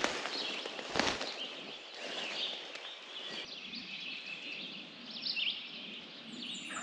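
Several songbirds chirping and singing, with a brief thump about a second in.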